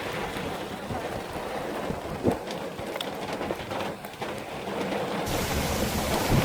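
Rain falling, with scattered individual drop hits, turning suddenly heavier and louder about five seconds in.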